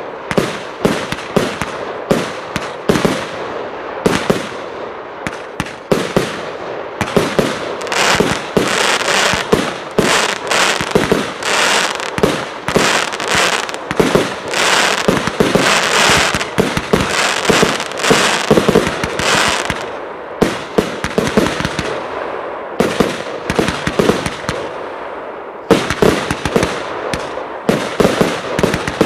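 Fireworks going off in rapid succession: a continuous run of launch pops and bursting shells from an automatic fireworks show. It is densest through the middle, thins out for a few seconds, then picks up again near the end.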